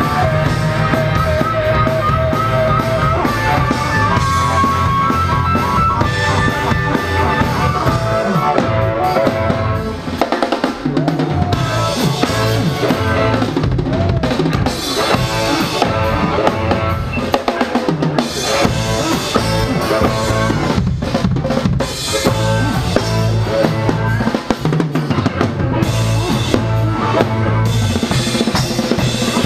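Live band playing: harmonica through a microphone with held and bending notes over electric guitar, bass and drum kit. After about nine seconds the held notes fade and the drum kit comes to the fore, with bass drum, snare and cymbals.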